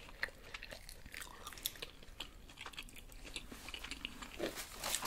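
Chewing of fast food, heard close: a quiet run of small, irregular wet clicks and crunches from mouths working on a burger and chicken fries.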